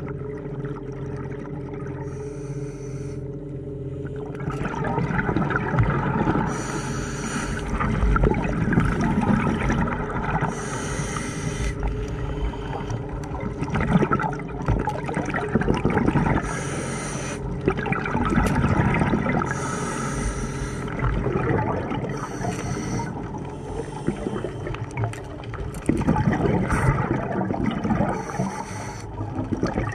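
Scuba diver breathing through a regulator underwater: a hiss on each inhale, about every three to four seconds, with a burbling rush of exhaled bubbles in between. It grows louder about four seconds in.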